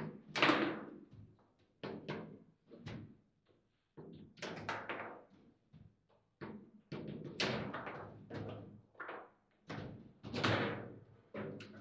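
Table football (foosball) play: irregular bursts of sharp knocks and clacks as the ball is struck by the rod figures and bangs against the table walls, with short lulls between rallies.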